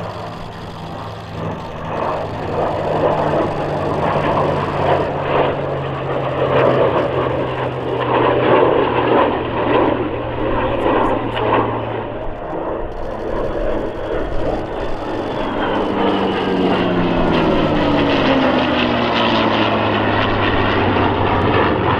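A North American P-51D Mustang's Packard Merlin V-12 and an F-35A Lightning II's jet engine flying past together in close formation. The sound builds over the first few seconds, and in the second half the engine note falls in pitch as the pair passes.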